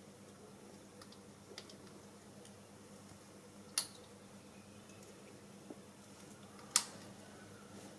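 Two sharp clicks, about four and about seven seconds in, with a few fainter ticks, over a faint steady hum.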